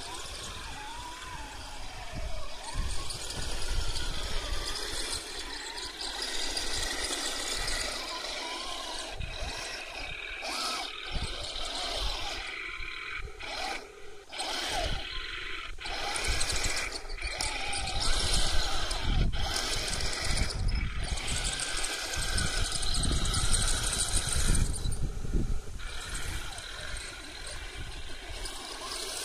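Heng Long 1/16 M41 Walker Bulldog RC tank driving over dirt: the whine of its electric drive motors and gearboxes, rising and falling as it speeds up and slows, with the running noise of its tracks.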